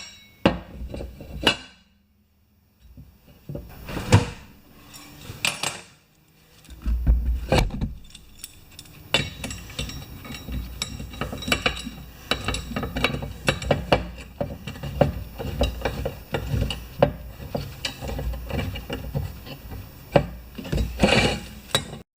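Irregular clanks, knocks and scraping of a tire tool and manual tire changer as a new tubeless lawn tractor front tire is worked onto its rim. Two short lulls come in the first six seconds, then the knocking and rubbing go on steadily and cut off suddenly at the end.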